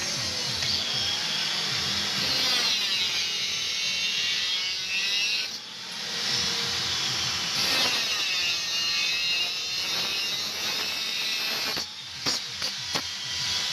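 Handheld electric power tool working steel, its whine rising and falling in pitch as the load changes. It dips briefly about halfway, then stops near the end, followed by a few sharp metallic clicks.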